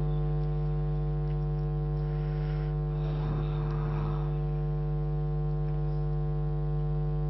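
Steady electrical mains hum with many overtones from the microphone's sound system, unchanging in level.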